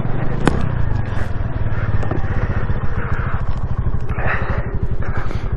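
2022 Honda Navi's small single-cylinder engine running steadily under way, with a fast, even low pulsing; a sharp click about half a second in.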